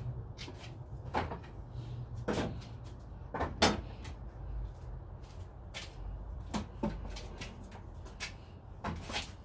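Irregular wooden knocks and clunks, about half a dozen, the loudest about three and a half seconds in, from boards being knocked loose from a wooden picket fence section with a hammer.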